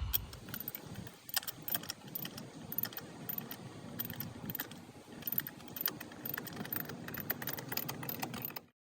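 Irregular metallic clinks and taps of hand tools being handled and worked against metal, over a faint low hum; the sound cuts off abruptly near the end.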